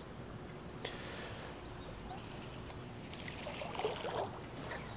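Faint splashing and swishing of a fly line being drawn across and torn off the river surface during a double Spey cast, loudest around three to four seconds in.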